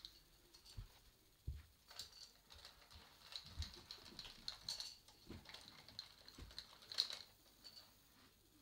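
Faint, scattered clicks, taps and rustling of small hard objects being handled, with soft low thumps and one sharper click about seven seconds in.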